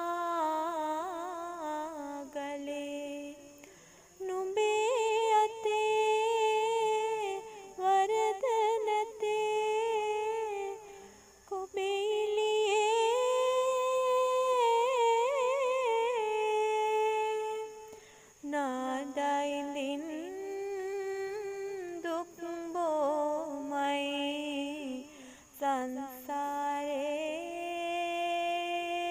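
A single voice singing a slow Sinhala song in long, held, wavering phrases, with short breaths between them.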